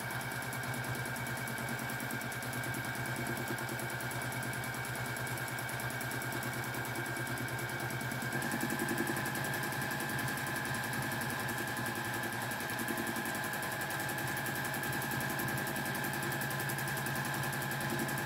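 Domestic sewing machine running steadily at speed, quilting through a thick quilt of fabric and polyester batting: a fast even needle rattle over a steady motor whine. About halfway through the whine shifts slightly and grows a little louder.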